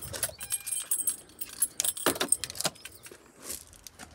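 A bunch of keys jangling and clinking as they are handled, with a few louder knocks about two seconds in.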